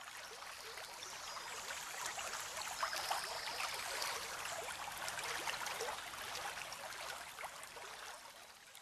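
Rushing water of a rocky mountain torrent, a steady splashing hiss that swells in the middle and fades out near the end.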